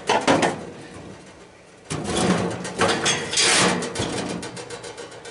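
Sheet-metal housing of a finned coil unit scraping and clattering against metal as it is handled: a short burst at the start, then a longer stretch of scraping and rattling from about two seconds in.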